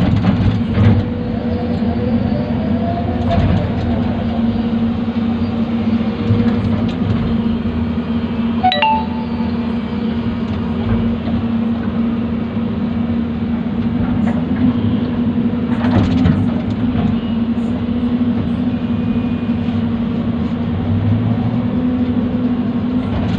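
Hyundai hydraulic excavator's diesel engine running steadily at working revs while it digs, with a couple of short knocks from the machine.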